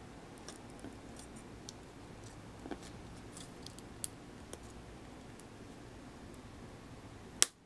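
Blue plastic pry tool clicking and scraping faintly against the edge of an iPhone 4's battery and metal frame as the glued-in battery is pried up, with one sharp click near the end.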